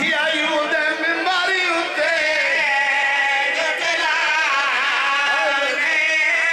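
Several men's voices chanting a mournful Shia lament together, the zakir's sung recitation joined by the men around him, carried over a microphone.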